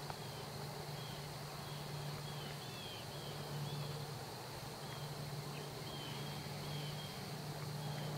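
Quiet outdoor field ambience: faint short high chirps repeating about once or twice a second over a low steady hum.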